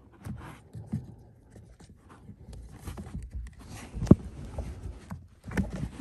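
Handling noise of a rubber-backed aluminum pedal cover being worked onto a car's pedal pad: irregular rubbing, creaks and small knocks, with one sharp knock about four seconds in.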